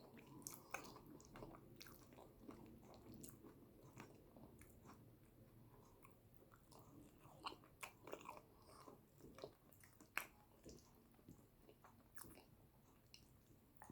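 Faint close-miked chewing of yam with eggplant sauce: irregular wet mouth clicks and smacks.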